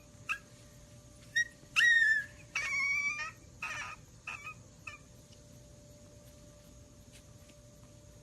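High-pitched animal whines and yelps: about five short calls in the first five seconds, the loudest about two seconds in with a rise and fall in pitch.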